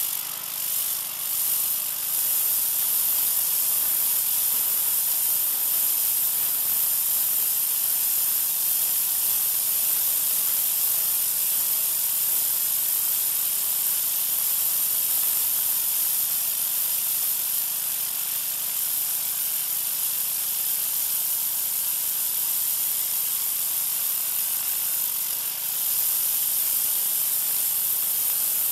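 Troy-Bilt 2200 psi pressure washer with an oscillating tip spraying a concrete sidewalk: a steady, loud hiss of high-pressure water, with the machine's engine running faintly underneath.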